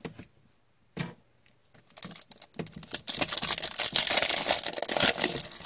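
A foil trading-card pack being torn open and crinkled by hand. There is a single click about a second in, then a dense crackling rustle from about two seconds in that is loudest over the last half.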